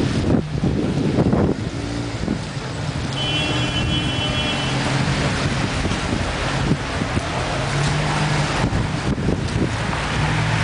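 Street traffic, with cars running and passing, and wind buffeting the microphone, heaviest in the first second and a half.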